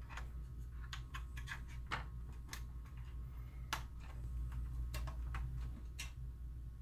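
Irregular small clicks and ticks of wire connectors being pushed into their sockets on a projector's circuit board and handled, about one or two a second, over a steady low hum.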